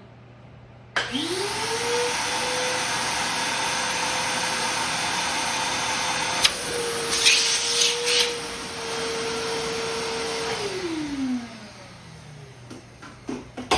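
Shop vac switched on, its motor whine rising to a steady pitch while its hose is held against a pressed-in tweeter dust cap to suck the dome back out. About six and a half seconds in there is a sharp click, then a louder rush of air for a second or so. The motor is switched off and winds down with a falling pitch.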